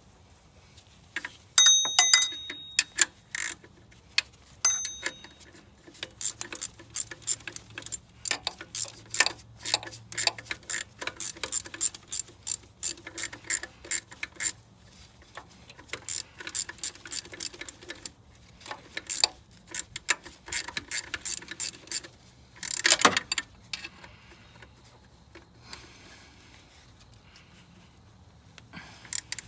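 Ratchet wrench clicking in quick runs of strokes as a bolt is turned, with a short metallic ring near the start and a louder clatter about 23 seconds in.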